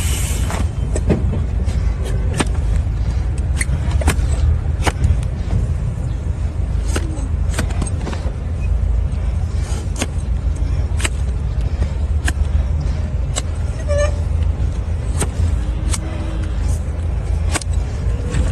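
Sharp, irregular clicks and snaps of hoof-trimming tools cutting into a donkey's overgrown hoof, over a steady low rumble.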